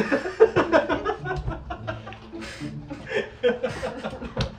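People chuckling and laughing, mixed with bits of speech.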